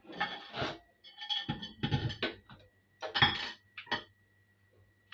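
Dishes and kitchen utensils clinking and clattering, in several irregular bursts of knocks and short rings.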